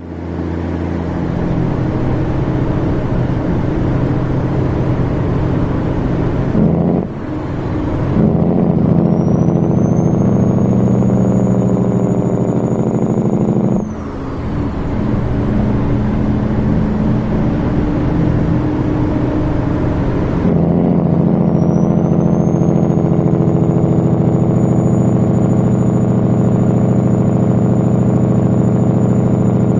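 Caterpillar 3406E diesel of a Kenworth W900L sounding through Pittsburgh Power mufflers in their loud configuration and 5-inch stacks, the exhaust bark of its Jake brake, in long steady stretches with short dips about seven and fourteen seconds in. A high whistle rises and then holds over the engine, about nine seconds in and again from about twenty-one seconds.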